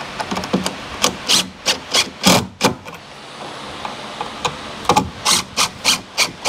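Cordless drill driving screws into a wooden post in short trigger bursts, fastening a screw-in electrical box. There are two runs of about half a dozen quick bursts each, with a pause of about two seconds between.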